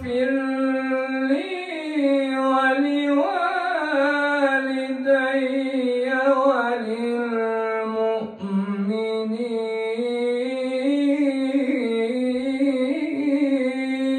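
A man reciting the Quran in the melodic tilawa style, holding long drawn-out notes that rise and fall in ornamented turns. About eight seconds in his voice briefly drops lower before the long notes carry on.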